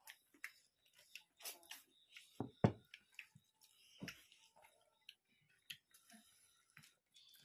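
Close-miked eating sounds of people eating pork curry and rice by hand: scattered mouth clicks, lip smacks and chewing, with two louder dull knocks about two and a half and four seconds in.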